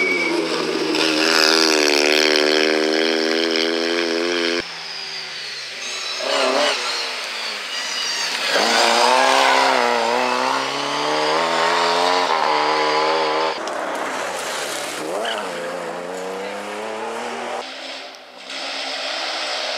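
Historic rally cars driven hard past in a run of short clips, with abrupt changes at each cut. A Fiat 126p's small two-cylinder engine runs at high revs, then a Lada saloon accelerates away with its engine revs climbing, then another car's engine falls and rises in pitch as it comes through.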